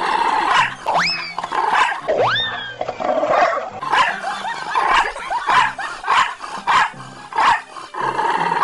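Dog barking and growling over background music. Two rising glides in pitch come about one and two seconds in, and short bursts repeat about twice a second through the second half.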